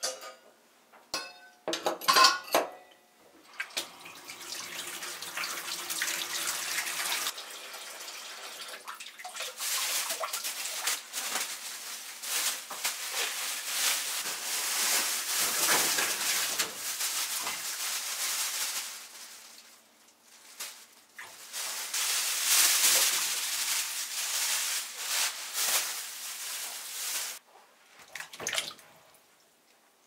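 Kitchen tap running into a stainless steel sink, filling it to soak vegetables. The water stops briefly around the middle, then runs again. A few metal clinks come near the start.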